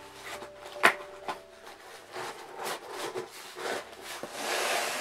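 Tissue paper and packaging being handled: rustling with scattered taps and clicks, one sharp click about a second in and a louder rustle near the end.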